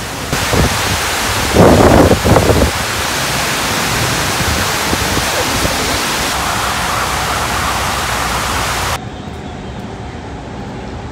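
Steady rushing of water cascading down the walls of a 9/11 Memorial reflecting-pool waterfall, briefly louder about two seconds in. About nine seconds in the rushing cuts off to quieter city-street ambience.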